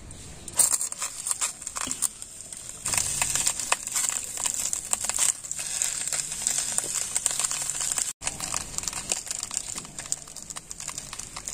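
Fresh banana leaves crinkling and rustling in a wok, with irregular small clicks, taps and scrapes as a thick paste is tipped onto the leaves and patted flat by hand.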